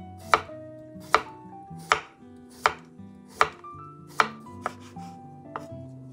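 Kitchen knife slicing a cucumber on a wooden cutting board: six sharp knocks of the blade through the cucumber onto the board, evenly spaced a little under a second apart, then two softer cuts near the end.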